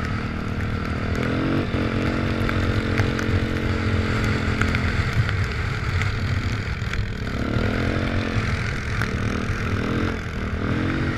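Quad (ATV) engine running while riding, its revs rising and falling with the throttle several times in the second half, over a heavy low wind rumble and scattered ticks and clatter.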